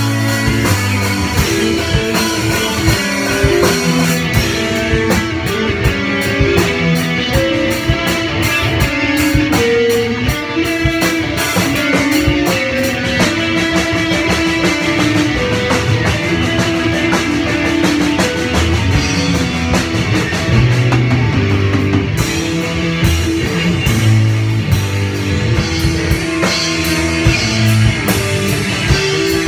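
Rock band playing an instrumental jam: electric guitars over a drum kit with steady cymbal strokes, loud and continuous.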